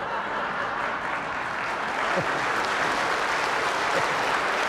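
Live audience applauding, building up over the first two seconds and then holding steady.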